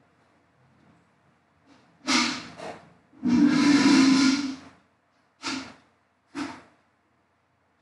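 Loud puffs of breath close to a microphone: two quick ones about two seconds in, a long hissing exhale of about a second and a half, then two short puffs.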